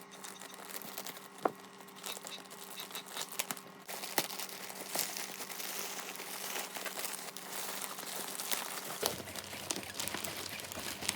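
Packaging crinkling and rustling as it is handled and opened to unwrap the bowls, with scattered sharp clicks, a little louder from about four seconds in.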